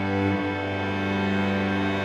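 String quartet playing slow, sustained notes over a low drone. The held notes shift with a brief slide about half a second in.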